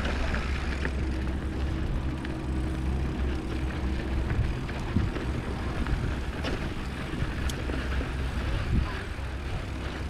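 A mountain bike riding down a rough dirt trail: a steady low rumble with scattered clicks and knocks as the bike rattles over the ground.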